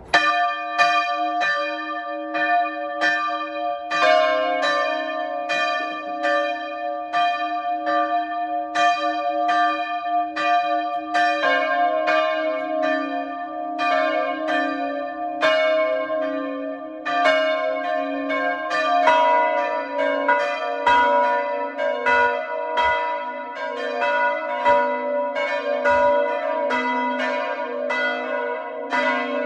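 A ring of four hand-rung church bells (the largest in A, cast by De Poli in 1921; the other three cast by Paolo Capanni in 1951) ringing together in a pealing pattern. They start suddenly and loudly at about two strokes a second, then the strokes come faster and the pattern changes several times.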